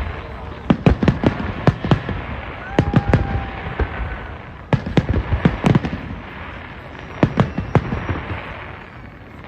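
New Year's fireworks going off on all sides: irregular sharp bangs, often in quick clusters, over continuous crackling, with a brief faint whistle about three seconds in.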